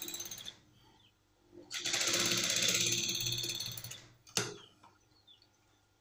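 Straight-stitch sewing machine running in two short bursts of stitching: one stops about half a second in, and after a short pause a second runs for about two seconds. A single sharp click follows.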